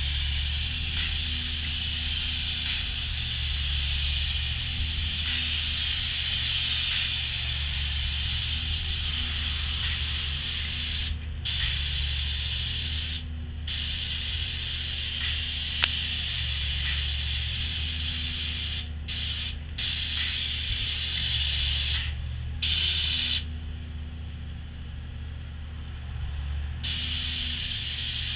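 Plural-component spray gun hissing as it sprays Sauereisen No. 210X SewerGard epoxy lining onto a manhole wall. The hiss cuts out briefly several times and for a few seconds near the end, while a steady low hum carries on underneath.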